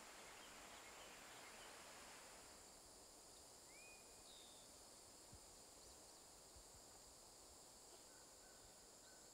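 Very faint woodland ambience: a soft rush of cascading water that drops away about two and a half seconds in, a few short bird chirps, and a steady high drone of insects.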